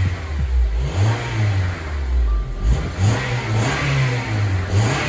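Honda Element's 2.4-litre four-cylinder engine, warmed up, revved from idle several times, the engine note rising and falling with each blip. It runs without an audible misfire, though the owner had felt one on acceleration.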